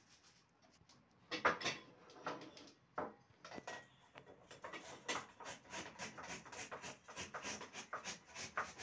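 Yeast being stirred into warm water: a quick, steady clicking, about four clicks a second, from about four seconds in. A few louder knocks come about a second and a half in.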